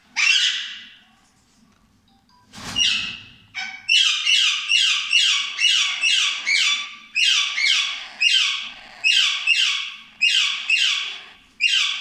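Rose-ringed (ringneck) parakeets calling in a nest box: a single squawk at the start and another a little later, then from about four seconds in a quick series of loud squawks, about two a second, each falling in pitch.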